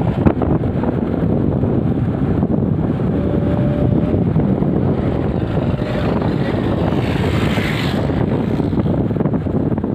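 Wind buffeting the microphone during a bike ride along a road, a steady low rumble of riding noise. A single sharp knock comes just after the start.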